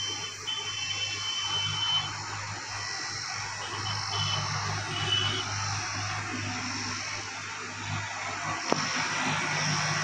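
Window air conditioner running while refrigerant gas is charged into it: a steady low compressor hum under an even rushing noise.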